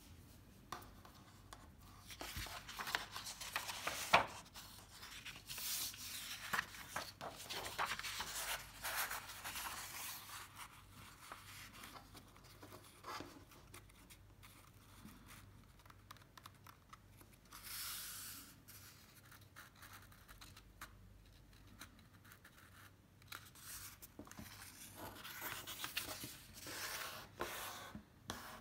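A sheet of paper being folded by hand: rustling and sliding as it is handled, and dry scraping strokes as fingers press the creases flat. It comes in bursts, with quieter stretches about halfway through and again around twenty seconds in.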